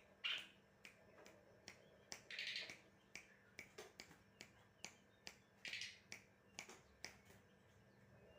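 A kept songbird giving short, sharp chirps and clicking calls, scattered about two a second with brief pauses between them.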